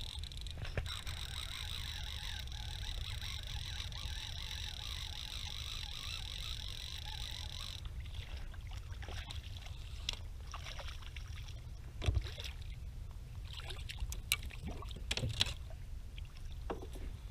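Water hissing and splashing along a kayak for about eight seconds, over a steady low rumble, then a few scattered light knocks and clicks.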